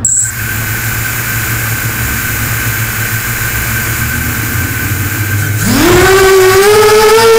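FPV quadcopter on the ground with a steady low hum and a faint thin whine, then about six seconds in its motors spin up with a sharply rising whine that levels off as it lifts off, heard close up from the onboard camera.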